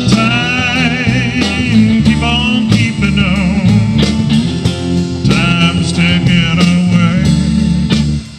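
Live rock band playing with electric guitars, bass and drum kit, a lead line of held, wavering notes riding over the band. The sound drops out abruptly just at the end.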